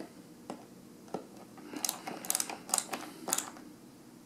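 Hand screwdriver turning a screw tight up into a lounge chair's arm: a couple of scattered clicks, then a quick run of sharp clicks and scrapes from about two to three and a half seconds in.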